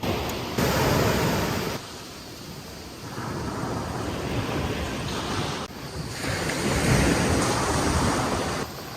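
Sea waves washing ashore with wind buffeting the microphone, in several stretches that start and stop abruptly.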